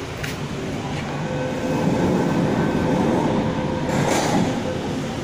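MTR CA-stock electric train pulling out of the station, its traction motors giving a faint steady hum over the rumble of the wheels, growing louder about two seconds in. A brief sharper rattle about four seconds in.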